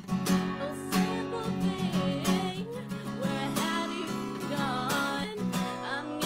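A woman singing while strumming a steady rhythm on an acoustic guitar.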